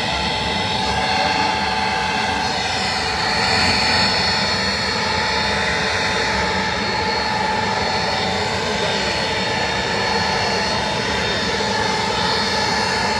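Jet engines of an Ilyushin Il-76 four-engine military transport taxiing: a steady whine over a low rumble, swelling a little about four seconds in.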